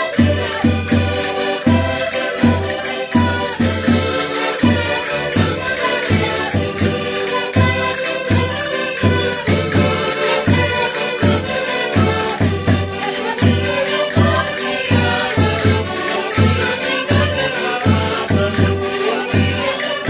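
Several Portuguese concertinas (diatonic button accordions) playing a lively folk dance tune together over a steady pulsing bass beat.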